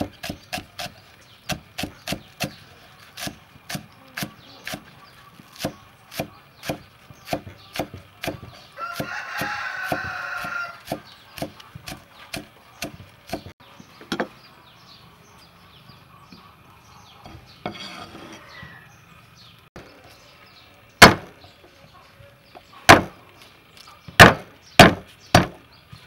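Cleaver chopping green onions on a wooden chopping board, a steady run of knocks about two a second. About nine seconds in a rooster crows for roughly two seconds, and near the end come a few much louder single blows of the cleaver on garlic cloves on the board.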